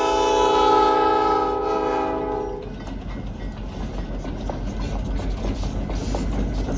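Ann Arbor Railroad locomotive horn sounding a loud, steady chord that cuts off a little over two and a half seconds in, followed by the rumble and wheel clicks of the locomotives rolling past.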